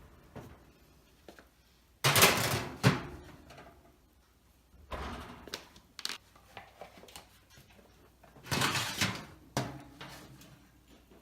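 Household handling noises: a few short knocks and scuffs, the loudest about two seconds in, others about five and nine seconds in.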